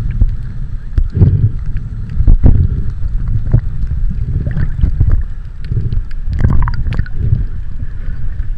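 Water sloshing and churning against the microphone as the camera is held at or in the sea while swimming: a low rumble that swells and ebbs irregularly, with scattered sharp clicks.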